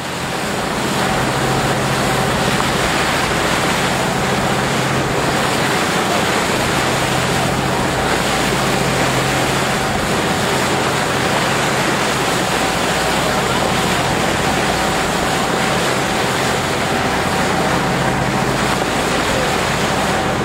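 Tour boat under way at sea: a steady rush of wind and water, with a low, even drone from the boat's engines underneath.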